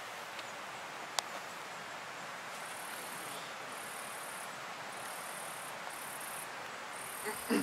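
Insects singing in tall grass: a very high-pitched trill that comes in stretches of about a second with short breaks, starting a few seconds in, over a steady outdoor hiss. One sharp click about a second in.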